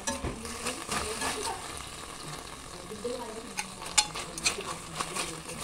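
Pork liver slices sizzling in soy and oyster sauce marinade in a metal wok while metal tongs turn them, with repeated sharp clinks of the tongs against the pan, the loudest about four seconds in.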